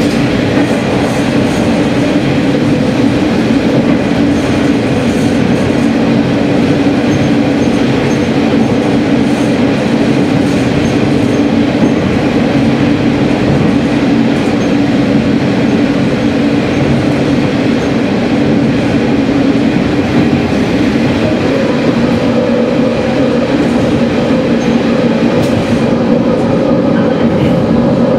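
Sanriku Railway diesel railcar running through a tunnel, heard from the driver's cab: a loud, steady, dense roar of the train on the rails, closed in by the tunnel walls. A slightly higher hum joins in about three quarters of the way through.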